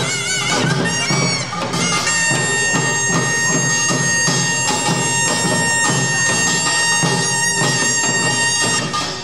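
Korean pungmul band playing: kkwaenggwari small gongs clanging and drums beating a driving rhythm, under a nasal, bagpipe-like taepyeongso shawm. The shawm plays a wavering melody, then holds one high note from about two seconds in.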